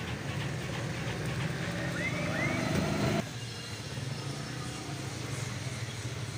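A motor vehicle's engine running, a low hum that grows louder and rises in pitch, then drops away suddenly about three seconds in, leaving a quieter steady hum.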